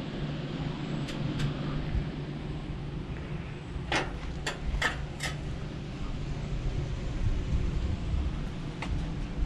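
Riding noise from a Huffy Cranbrook cruiser bicycle: a steady rumble of tyres and wind on the microphone, with a few short squeaks from the sprung saddle's seat springs, four of them close together about four to five seconds in.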